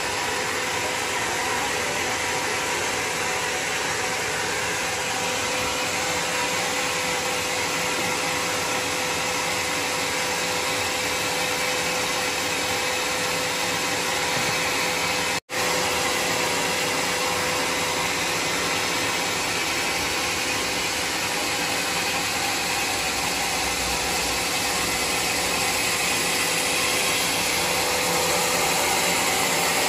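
Band sawmill machinery running steadily: a constant motor drone with a steady whine, with no cutting yet. The sound drops out for a moment about halfway through.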